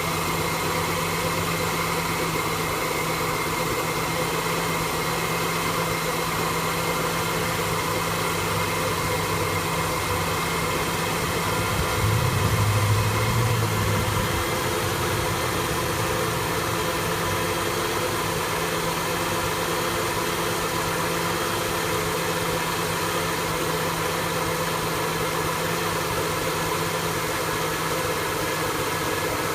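Engine of a 1974 Ford F-100, converted to fuel injection, idling roughly. It swells louder for about two seconds around twelve seconds in.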